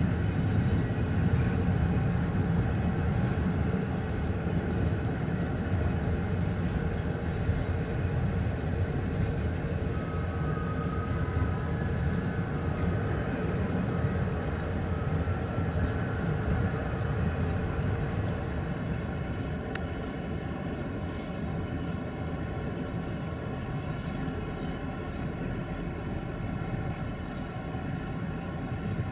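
Passenger train coach rolling slowly over the rails, a steady low rumble with faint steady tones above it, easing slightly in the second half.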